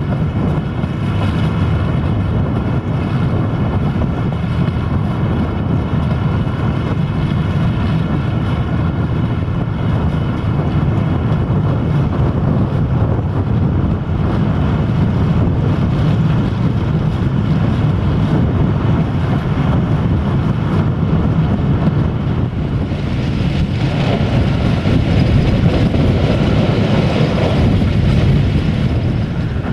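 Old Malaxa diesel railcar running steadily at speed: engine drone and wheel rumble with wind rushing past an open window. The rushing grows louder for a few seconds near the end.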